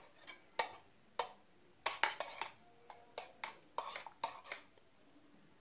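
A metal spoon stirring a dibek coffee mixture in a stainless steel cezve, clinking and scraping against the pot's sides in irregular strokes.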